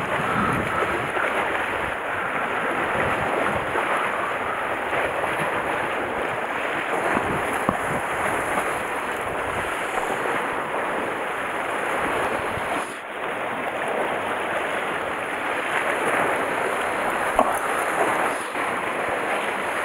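Sea water washing and surging among the rocks and concrete blocks of a breakwater, a steady rushing noise, with wind buffeting the microphone.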